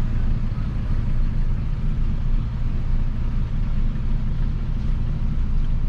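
Peugeot 206 1.4 four-cylinder engine running steadily through a straight-pipe exhaust with no muffler, a low even drone with no revving.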